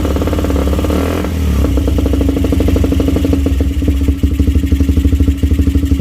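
Motorcycle engine running through a Lone Rider 'standard bass' aftermarket racing exhaust. It holds a steady high idle, dips briefly about a second in, then settles into a slower idle with distinct, evenly spaced exhaust pops from about four seconds in.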